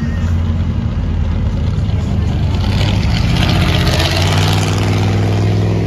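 Engine of a full-size custom van running at low revs as it drives slowly past, over the engines of other cars in slow traffic. A hiss swells from about two and a half seconds in and fades near the end as it passes closest.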